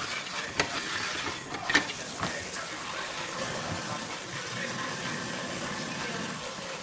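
Water running steadily from a tap, with two sharp knocks or clinks in the first two seconds.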